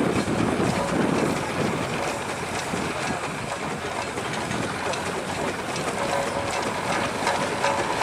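Steam-hauled balance plough being drawn along by its wire cable, its iron frame, wheels and chains rattling and clanking.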